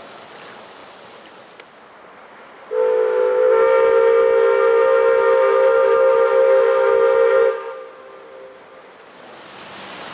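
Ship's steam whistle on the paddle steamer Vltava giving one long blast of about five seconds, several tones sounding together as a chord, with a brief fading tail.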